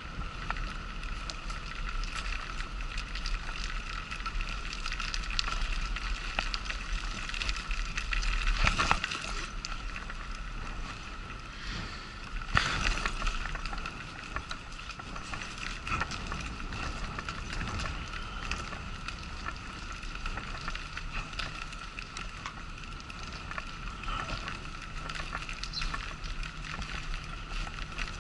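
Wheelchair rolling along a paved sidewalk, its frame rattling and clicking over the surface under a steady high hum, with two louder jolts about nine and twelve seconds in.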